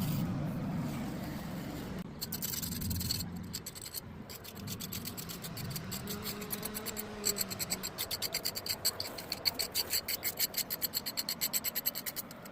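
Rapid, rhythmic back-and-forth scraping, several strokes a second, that grows stronger and steadier in the second half. A low steady hum runs under the first few seconds and fades out.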